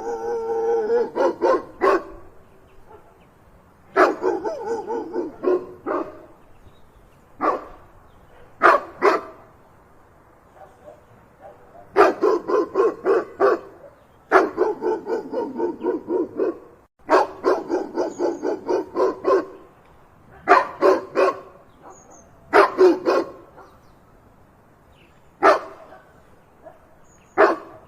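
A dog barking in repeated runs of quick barks, each run lasting from a fraction of a second to about two seconds, with short pauses between runs.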